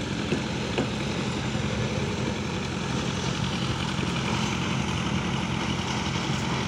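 Heavy machinery engine running steadily at an even speed, a low constant hum, with a couple of light knocks in the first second.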